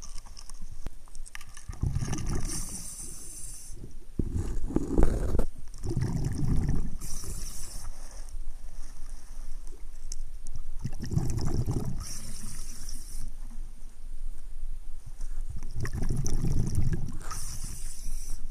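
A diver breathing underwater in a regular cycle about every five seconds: a hiss on each breath in, four times, then a low burst of bubbles on each breath out.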